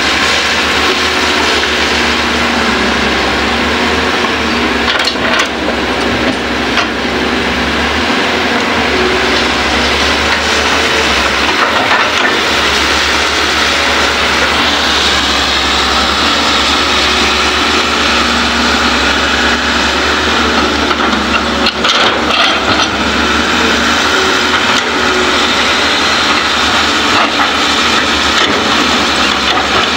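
Hydraulic excavators' diesel engines running steadily under load while digging soil, with a few sharp knocks and scrapes of the bucket against earth now and then.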